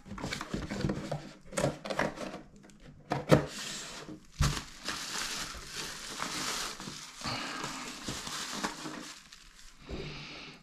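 Plastic bubble-wrap bag crinkling and rustling as it is opened and pulled off a spinning reel, with a few sharp knocks in the first half.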